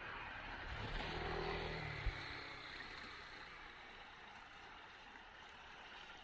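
A motor vehicle's engine passing by, rising to its loudest about one to two seconds in and then fading, over steady outdoor background noise. A single sharp thump about two seconds in.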